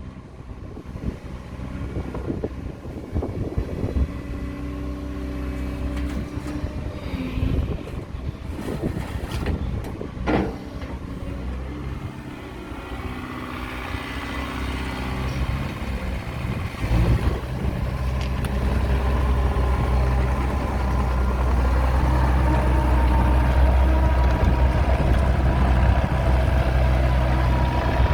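JCB 48Z-1 mini excavator's Perkins 404D-22 four-cylinder diesel running steadily. There is a sharp knock about ten seconds in. The engine gets louder from about two-thirds of the way through and holds there.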